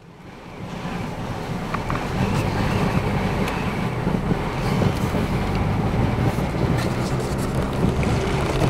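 A vehicle driving on a snow-covered road, heard from inside the cabin: a steady low engine hum with wind and road noise, fading in over the first second or so and then holding level, with a few faint ticks.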